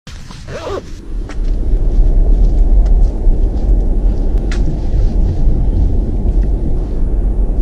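Wind buffeting a handheld camera's microphone: a loud, uneven low rumble, with a few faint handling clicks.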